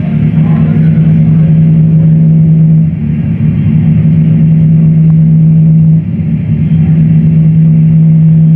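Loud live electronic noise music: a heavy, steady low drone with a stack of overtones over a dense noisy layer. It thins out briefly about three and six seconds in.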